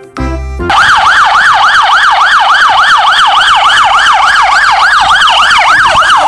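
A police car siren wailing in a fast yelp, rising and falling about four times a second, coming in loudly about a second in after a few notes of music.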